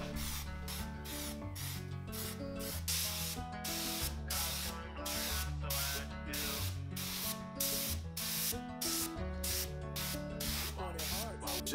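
Background music: a steady beat of short hissing hits over a bass line that steps between held notes, with a melody above.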